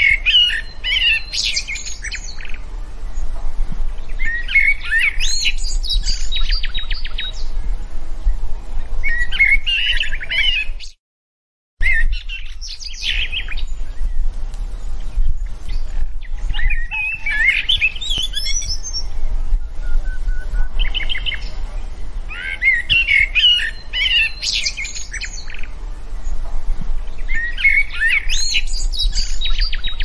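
A songbird singing short, rapid phrases of chirps and warbles that recur every few seconds, over a steady low hum. The sound cuts out entirely for under a second about eleven seconds in.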